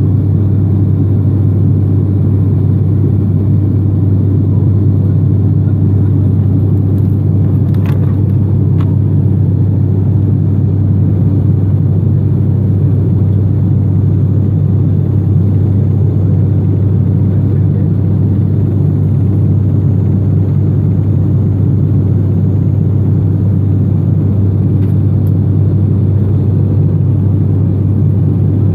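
Steady low drone inside the cabin of an ATR 72-500 turboprop, from its Pratt & Whitney PW127F engines and six-blade propellers running, with a strong deep hum.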